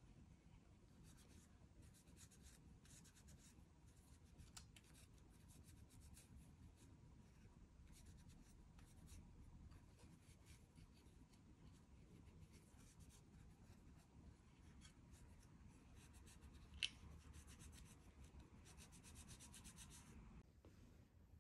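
A cloth rubbing over a small carved zelkova wood sculpture as beeswax is wiped into it: faint, scratchy strokes in short spells. One sharp tick about three quarters of the way through.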